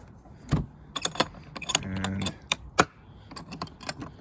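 A string of sharp clicks and rattles of small hardware and hard plastic: the latches and loose parts of a Ridgid interlocking tool storage organizer being handled.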